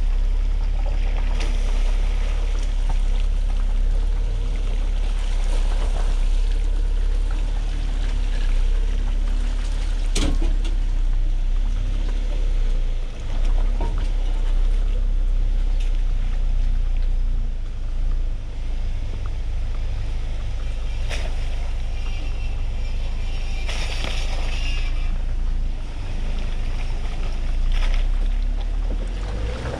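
Ford Ranger pickup driving off-road: a steady low engine-and-drivetrain rumble with wind buffeting the microphone, and a few sharp knocks, one about a third of the way in and another about two-thirds in.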